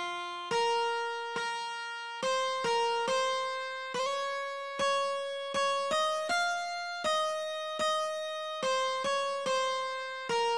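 Background music: a slow melody of single notes played one at a time, each struck sharply and fading away.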